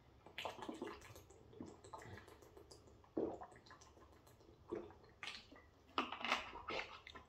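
Drinking from a plastic water bottle: a series of soft gulps and water sloshing inside the bottle, then the plastic crackling as the bottle is lowered and its cap turned back on near the end.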